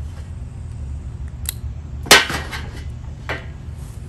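Plastic solar-panel cable connectors being pulled apart and handled over a metal folding chair: a few light clicks, then a sharp clack about two seconds in and a softer one about a second later.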